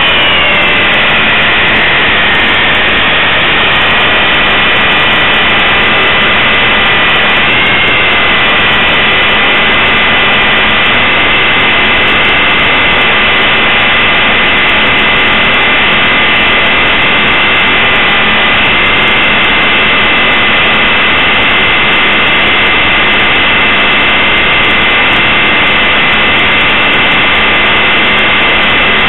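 Blade 450 3D electric RC helicopter's brushless motor, gears and main rotor heard from a camera mounted on the helicopter: a loud steady whine with several high tones. Its pitch eases down and settles in the first couple of seconds, wobbles briefly about eight seconds in, then holds constant.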